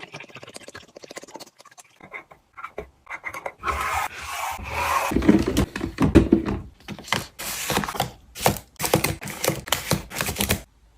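Groceries being unpacked and put away: faint ticks, then a loud rustle of packaging for a few seconds, then a quick run of sharp clicks and knocks as containers are set down and arranged.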